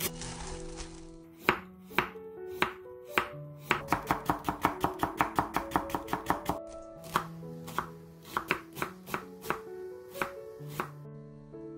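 Chopped garlic chives poured into a ceramic bowl with a brief rustle. Then a chef's knife chops on a wooden cutting board: a fast, even run of strokes julienning carrot, followed by slower, spaced chops dicing onion.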